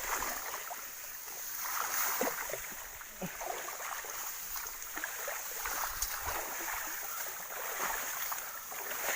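Water sloshing and splashing at the bank, with scattered small splashes and clicks, as a hooked giant snakehead (toman) is led in to the edge.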